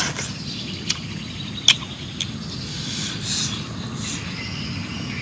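Someone eating with their fingers: a few short, sharp mouth smacks and clicks, the loudest a little under two seconds in, over a steady low outdoor rumble.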